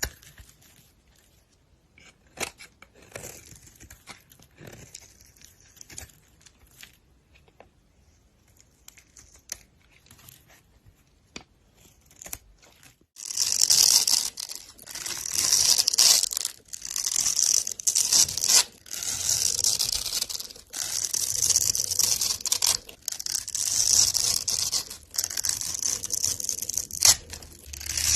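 A blade cutting and scraping through a bar of soap. Faint scattered clicks and taps come first, then about halfway through a run of repeated scraping strokes begins, each about a second long, roughly one a second.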